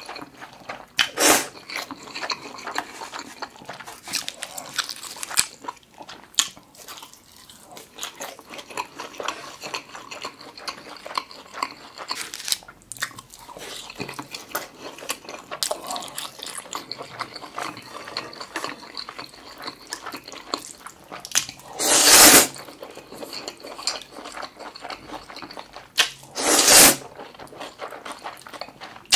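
Close-miked eating: steady chewing and wet mouth clicks, with three loud slurps of buckwheat noodles, one about a second in, one about two-thirds through and one near the end.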